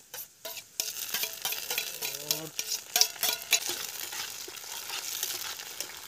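Tomato going into hot oil in a pan: a few clicks, then from about a second in a dense frying sizzle, with a spoon stirring and clacking against the pan.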